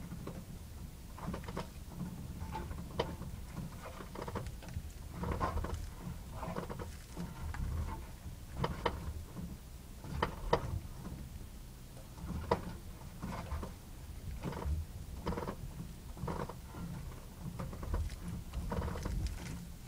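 2006 Honda Civic creaking as the steering wheel is turned at low speed: short, irregular creaks about once a second over the low rumble of the car.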